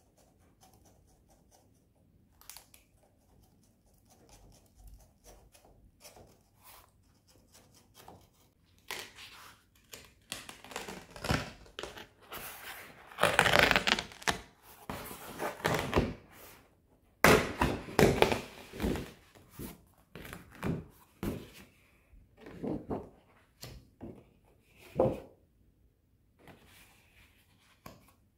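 A large sheet of heavy rough watercolour paper (300 g/m²) being handled on a wooden table: rustling and sliding of the stiff paper as it is lifted from its pad and laid flat, with knocks and thumps against the tabletop. It starts quiet and grows into a run of louder crackling and thumping handling noises through the middle.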